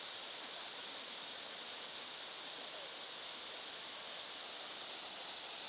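Steady rushing of a rocky mountain stream, an even hiss with no breaks.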